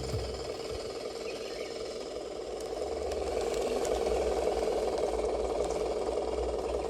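Radio-controlled scale crawler truck driving: its small electric motor and gear train whirring steadily, with light rattling and scraping as it crawls over the ground, getting a little louder about halfway through.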